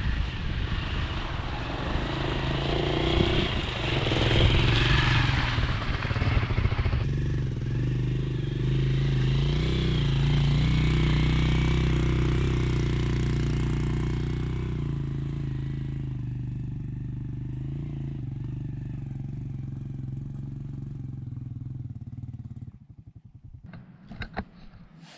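Small motorcycle engine running as the bike rides along a rough trail, louder in the first half and growing fainter. It cuts off abruptly near the end, leaving a few short clicks.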